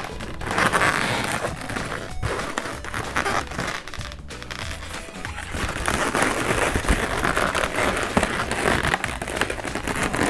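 Latex modelling balloons rubbing, squeaking and crinkling against each other as a balloon stem is twisted onto a balloon flower, over background music.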